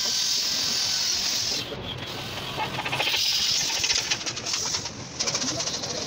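Electric hand drill running against the sheet-metal casing of a water heater, in two spells: one at the start lasting about a second and a half, and a second from about three seconds in lasting nearly two seconds.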